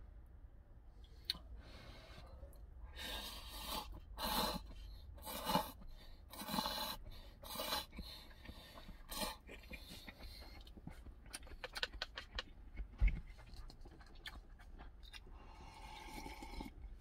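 A person slurping instant cup ramen noodles with chopsticks: a run of about five or six loud slurps, then quick small clicks of chewing and chopsticks with one thump. Near the end comes a softer sip of broth drunk straight from the paper cup.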